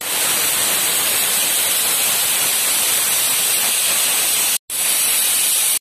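A loud, steady hiss that cuts out abruptly for a moment about four and a half seconds in.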